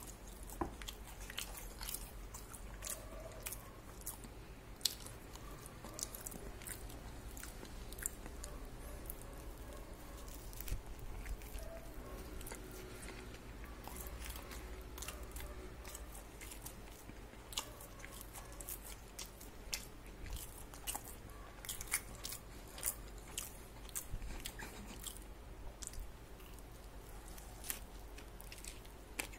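A person biting and chewing a crispy fried chicken burger, with many sharp, irregular crunches.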